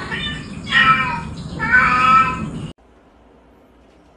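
Ginger domestic cat meowing, three drawn-out meows one after another, cutting off abruptly about two and a half seconds in.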